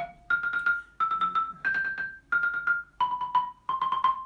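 Xylophone played with mallets: a slow phrase of about seven notes, each note struck several times in quick succession so it rings on, played as a legato exercise.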